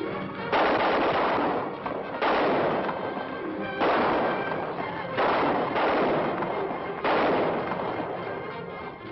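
Five gunshots about one and a half seconds apart, each sharp and trailing off in a long echo, with background music underneath.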